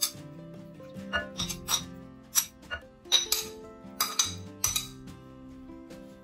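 A series of sharp, irregular clinks of a small ceramic plate and utensil against each other and a glass baking dish as pineapple chunks are scraped off into it, over light background music.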